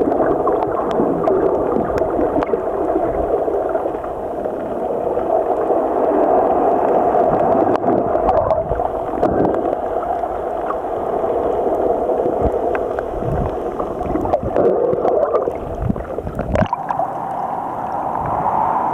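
Muffled rushing and gurgling of water heard by a camera held underwater in its waterproof housing, with scattered small clicks. Near the end the camera breaks the surface, and the sound turns into a brighter splashing and lapping of small waves at the waterline.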